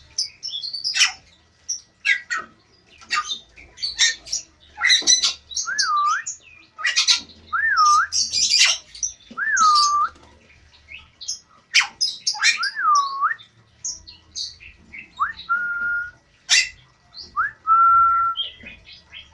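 Caged Bali starlings and lovebirds calling together: a steady run of sharp, shrill chirps and squawks, with a handful of clear whistled notes, several swooping down and back up and two held level near the end.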